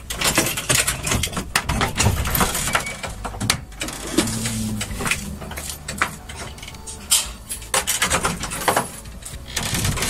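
Irregular clicks, knocks and clatter, with a brief faint voice about four seconds in.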